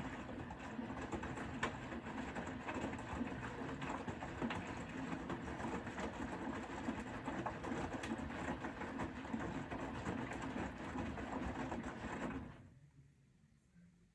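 Bosch Serie 4 front-loading washing machine's drum turning during the wash: the motor runs up, the load tumbles steadily with a low hum and scattered small knocks for about twelve seconds, then stops about twelve seconds in.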